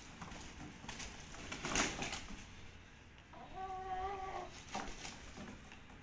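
White rooster scrambling across a tiled floor, with a loud flurry of wing flaps about two seconds in, followed by one drawn-out chicken call lasting about a second.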